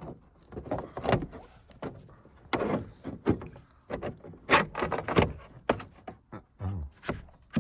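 Irregular knocks, taps and rustles of a removable window-tint panel being pressed into place against a car's rear window and its interior trim.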